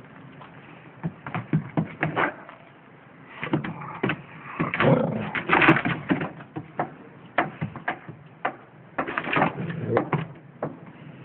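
Dog barking at a cat: bursts of short, low, muffled barks, loudest in the middle.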